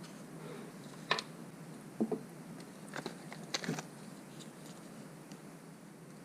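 Scattered clicks and light knocks of small hardware being handled and sorted on a workbench: a sharp click about a second in, a couple more around two and three seconds, and a quick cluster near four seconds.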